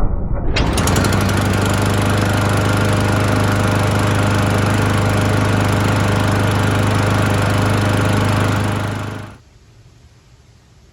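Murray lawn mower's Briggs & Stratton four-stroke single-cylinder engine running steadily at speed. It comes in abruptly about half a second in and stops about nine seconds in.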